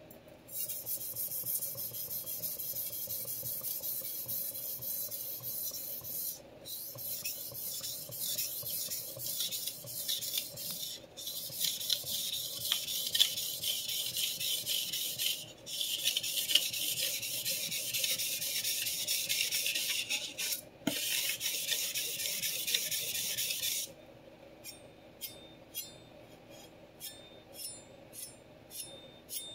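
Chef knife blade stroked back and forth across a wet sharpening whetstone, a steady gritty rasping broken by a few short pauses. About 24 s in the rasping stops and gives way to a run of light ticks, a few a second.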